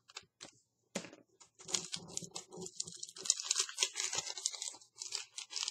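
A clear plastic sticker packet crinkling as it is opened and handled: a few sharp clicks, then from about a second in a dense, irregular run of crackles.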